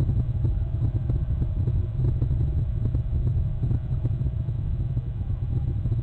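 Low, steady rumble of wind buffeting the outdoor camera's microphone, with irregular crackling gusts.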